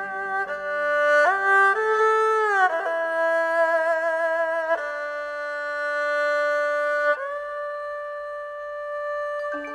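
Background music: a slow melody of long held notes that slide from one pitch to the next, with a slight vibrato.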